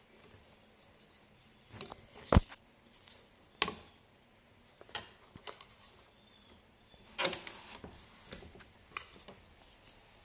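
A wooden rigid heddle loom being worked for the next rows: scattered wooden clicks and knocks as the heddle is shifted and the weft beaten, with light handling of the stick shuttle and yarn. One sharp knock a little over two seconds in is the loudest, with a cluster of clicks past the middle.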